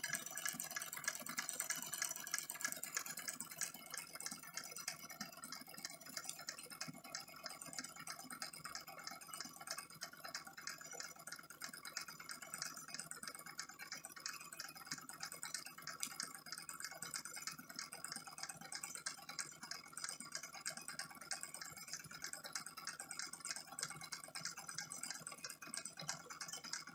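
Mamod and Wilesco live-steam toy engines running: a fast, even patter of exhaust beats over steady steam hiss and spitting water.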